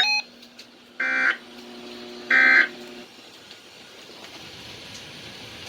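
Three short buzzing data bursts of an emergency alert broadcast signal, each about a third of a second long and about a second apart, with a faint low steady tone under them.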